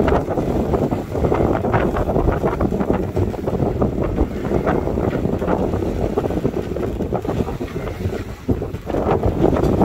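Strong gusting wind, over 30 knots, buffeting the microphone aboard a heeled sailboat, with the rush of choppy water along the hull. The noise swells and eases with the gusts.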